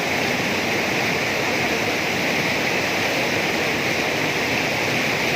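Fast mountain river rushing steadily over rocks, a loud even roar of white water.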